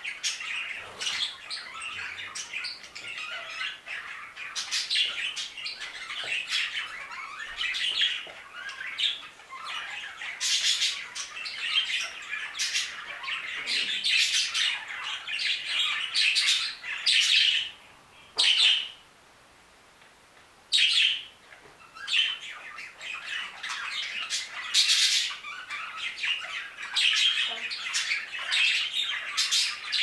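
A flock of budgerigars chattering, many overlapping chirps and calls at once. The chatter falls almost silent for about three seconds a little past halfway, broken by a single call, then picks up again.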